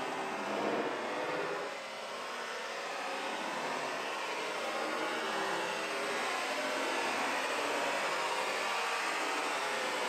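Hurricane-force storm wind rushing steadily, easing slightly about two seconds in before building again.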